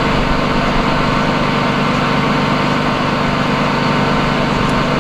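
An engine running steadily, an even, unchanging drone.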